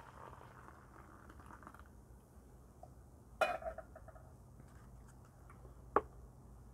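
Cups and utensils being handled: a sharp clink with a brief ring after it about three and a half seconds in, and a second sharp tap near the end, over a faint low hum.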